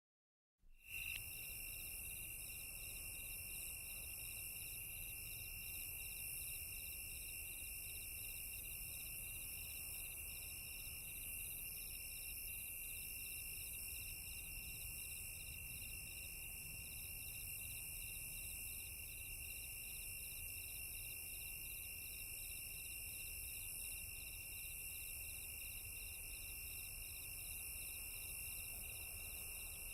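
Crickets chirping in a steady chorus: a continuous high trill with an evenly repeating chirp above it. It begins abruptly out of silence just over half a second in.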